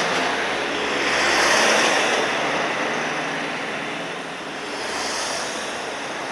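Traffic noise: a rushing sound of passing vehicles that swells about a second and a half in and again near five seconds.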